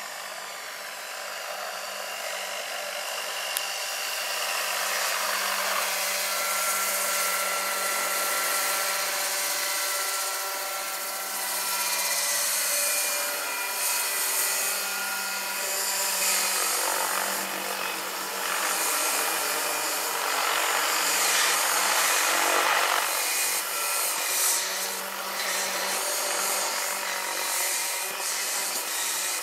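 Vario SA-341/342 Gazelle electric scale model helicopter in flight: its electric drive and rotors give a steady whine with a hiss, growing louder over the first few seconds as it comes closer, then staying loud with small swells.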